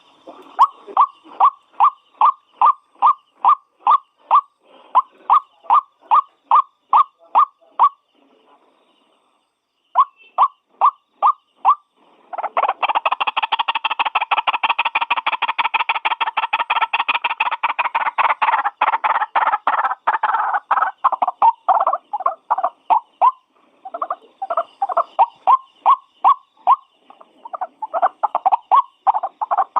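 White-breasted waterhen calling: a steady series of repeated notes, about two or three a second, breaks off for a couple of seconds. It resumes, swells into a fast, dense chattering run for several seconds, then settles back into repeated notes.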